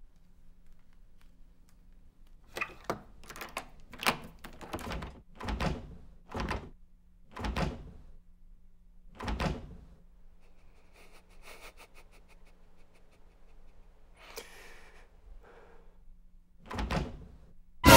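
About ten dull thuds or knocks, coming closer together at first and then further apart, followed by faint rapid clicking and one heavier thud near the end, over a faint steady low hum.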